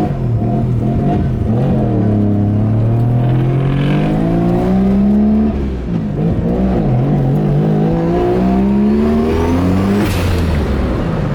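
Turbocharged 20B three-rotor rotary engine in a Mazda RX-7 pulling hard under full acceleration. Its pitch climbs steadily through a gear, drops at an upshift about halfway, climbs again through the next gear, and drops at another shift near the end.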